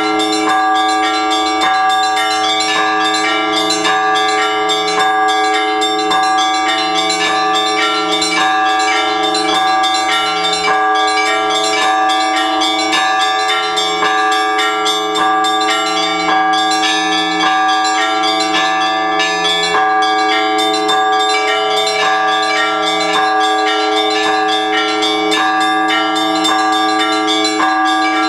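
Orthodox church bells of several different pitches rung together in a continuous peal. The bells are struck in quick succession, and the deeper tones hang on under the strikes.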